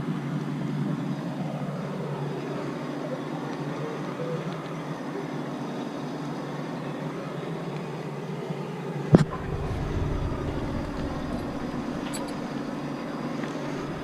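A motor engine running steadily at low revs, with one sharp knock about nine seconds in.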